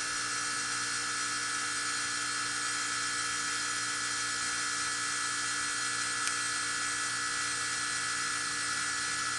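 Heat pump outdoor unit's compressor running with a steady hum and an even hiss, its condenser fan motor unplugged so the outdoor coil is frosting.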